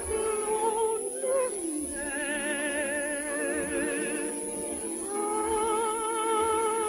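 Operetta song with orchestra: a woman's voice holds long notes with vibrato in a slow phrase, breathing between lines.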